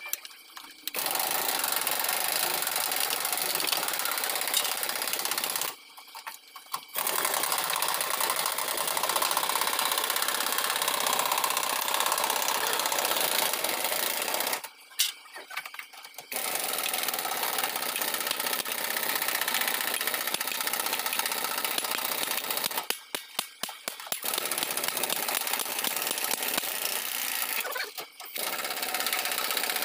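A machine running steadily with a rapid mechanical rattle, broken by brief gaps about four times.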